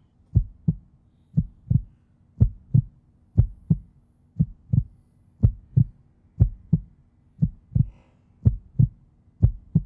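Heartbeat sound effect: a low double thump, lub-dub, repeating steadily about once a second, ten beats in all, laid in as a suspense effect.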